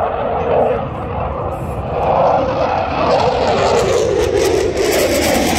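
Eurofighter Typhoon flying a display, the loud, steady noise of its twin jet engines slowly sinking in pitch, with a harsher hiss building from about halfway through.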